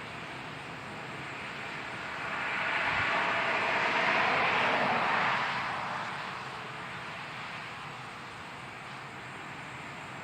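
American Signal T-128 rotating outdoor warning siren sounding. It swells about two seconds in and fades again by about six seconds as the horn turns, then begins to swell again near the end.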